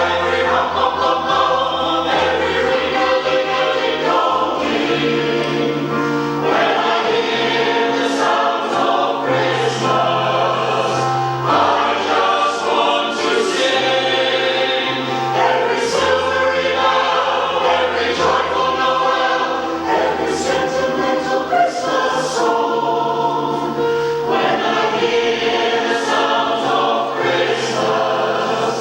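A mixed community choir singing a Christmas song in parts, with long held low notes beneath the voices.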